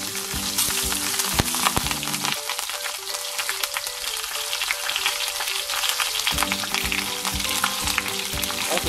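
Seared pork belly roll sizzling in its rendered fat in a hot cast-iron pot: a dense, steady crackle with many small pops. Green onion tops are being laid in beside it.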